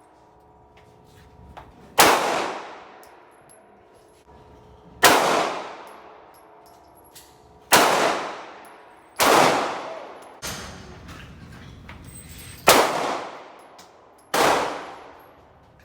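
Six single gunshots, one to three seconds apart at an uneven pace, each followed by a ringing echo that dies away over about a second.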